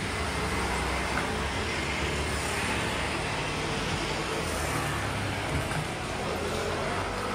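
Road traffic passing, with a steady rumble of cars.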